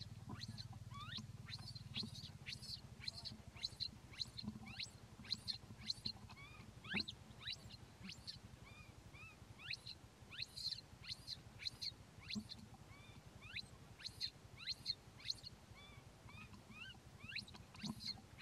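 Baby macaque crying with a rapid string of short, high-pitched squeaks and chirps, several a second, many sweeping up in pitch, over a faint low hum.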